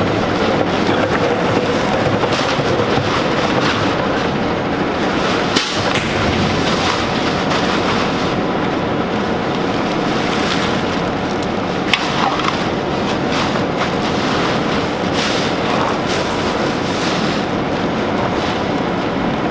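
Garbage truck's diesel engine idling steadily, with the rustle and thuds of black plastic trash bags and plastic cans being handled and thrown into its hopper; sharp knocks about six and twelve seconds in.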